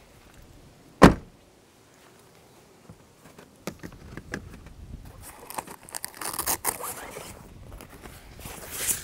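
A single sharp knock about a second in, then handling noises from about three seconds on: clicks, rustling and scraping.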